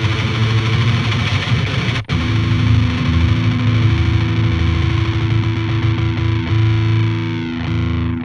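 Electric guitar through the Otto Audio Blown Out Wall chainsaw-style distortion plugin, riffing with a heavily saturated, fizzy tone while its filter is modulated. There is a brief cut about two seconds in, and near the end the last chord rings out as its treble fades away.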